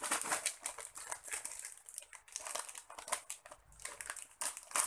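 Thin plastic snack packets crinkling as they are handled and opened by hand, a dense run of crackles with the loudest burst near the end.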